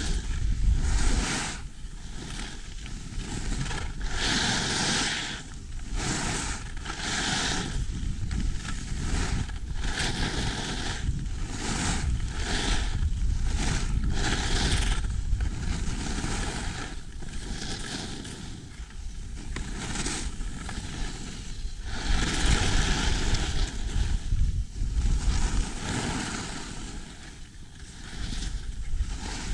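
Skis carving down a groomed piste in a run of regular turns, the edges swishing on the snow about once a second, over low wind rumble on the microphone.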